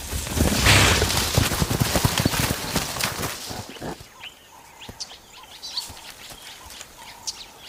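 A hippo charging through dry brush and dust: a loud rush of crashing and heavy thuds lasting about three and a half seconds, dying away to birds chirping.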